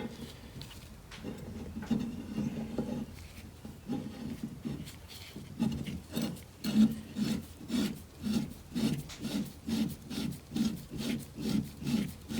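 Repeated rasping rubs from hand work on the threads of a steering drag link adapter, irregular at first and then settling into a steady rhythm of about two strokes a second.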